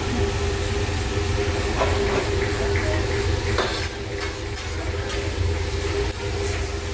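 Teppanyaki griddle cooking: food sizzling on the hot plate over a steady low rumble, with a couple of clinks about two and three and a half seconds in.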